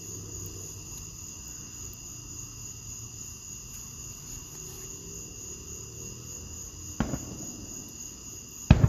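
A steady chorus of night insects, several high-pitched shrill tones held without a break. Two sudden sharp thumps come near the end, the second the louder.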